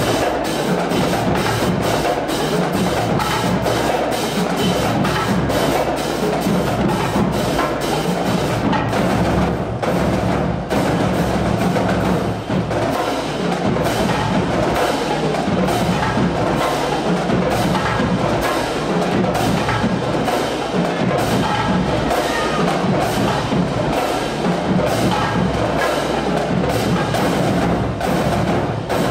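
Drumline percussion music: a fast, steady beat of sharp clicking hits over drums.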